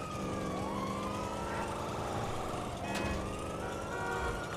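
Video-game police sirens wailing in overlapping rising and falling sweeps over a car engine running steadily, with a single sharp click about three seconds in.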